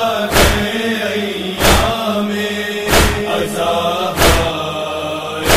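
A Shia Muharram noha lament being chanted, over a steady held tone, with a loud slap of chest-beating (matam) in time about every 1.3 seconds.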